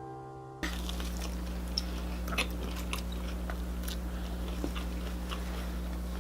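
Piano music fading out, then crunching and chewing of Cheetos-coated fried king crab legs, sharp crackles scattered over a steady electrical hum.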